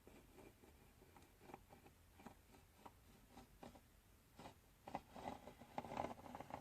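Faint handling noise: scattered light clicks and rustling that grow busier and louder near the end.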